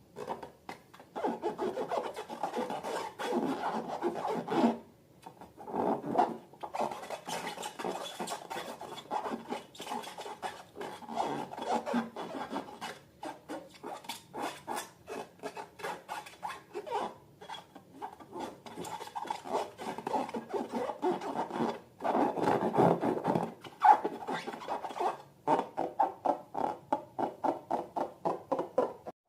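Slime being worked by hand or stirred: repeated quick rubbing and scraping strokes, several a second, with brief pauses about five and twenty-two seconds in.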